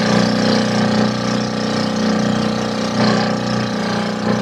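Engine of a motorized outrigger fishing boat running steadily under way, with the wash of water along the hull.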